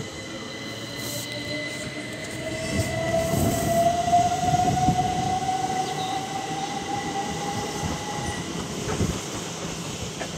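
Electric multiple unit train pulling away. A motor whine rises steadily in pitch as it gathers speed, over the rumble and clatter of its wheels on the rails, which are loudest about four seconds in. The whine stops about eight seconds in.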